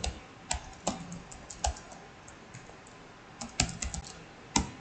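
Typing on a computer keyboard: irregular keystrokes, a few at first, a pause, then a quick run of keys near the end.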